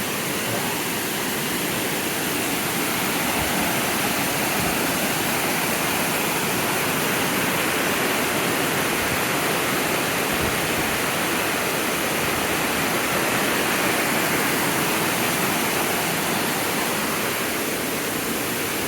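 Amicalola Falls, a tall cascading waterfall, rushing steadily.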